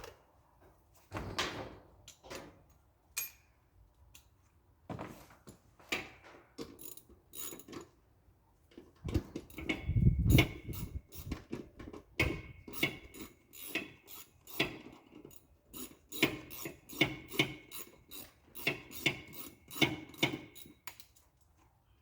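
Socket wrench working bolts loose on a lawn tractor: a long run of sharp metallic clicks and clinks, with a heavier clunk about ten seconds in. After that the clicks come at about two a second with a slight metallic ring.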